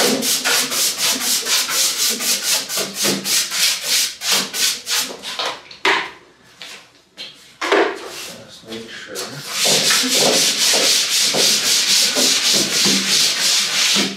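A cloth wiping dust off the sanded plywood top of a cornhole board in quick back-and-forth strokes, about four a second. After a pause with a single knock, a hand rubs flat across the wood in a denser, continuous rubbing near the end.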